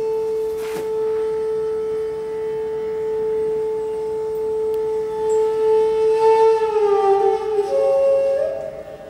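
Bansuri (bamboo flute) holding one long steady note for about six seconds, then bending down in pitch and sliding up to a higher held note near the end.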